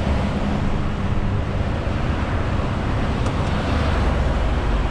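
Heavy truck's engine brake running steadily on a mountain descent: a dense drone over a low engine rumble. The rumble grows deeper and stronger about four seconds in.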